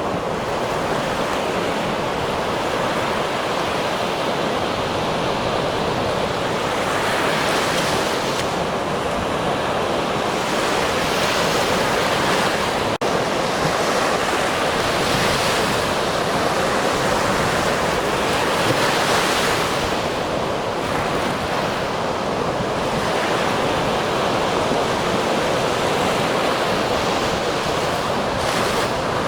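Ocean waves breaking on a shore, a steady rushing wash with swells of hiss every few seconds as waves crash and run out.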